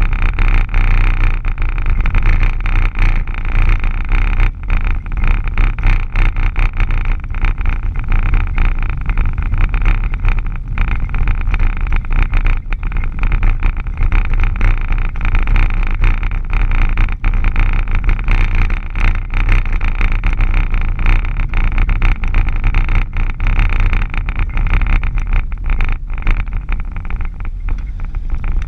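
Vehicle driving on a gravel road, heard from inside the cab: a steady rumble of engine and tyres on loose gravel, with many small clicks and rattles throughout.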